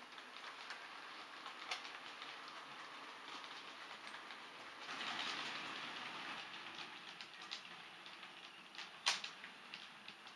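OO gauge model Class 375 Electrostar train running on model railway track: a faint, steady running rattle with scattered clicks from the wheels on the rails, swelling louder for about a second and a half around the middle, with one sharp click near the end.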